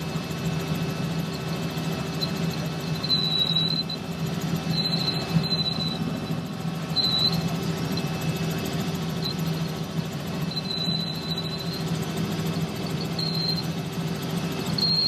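Helicopter in flight heard from inside the cabin: a steady low drone with a constant hum. A short high-pitched squeal comes and goes several times over it.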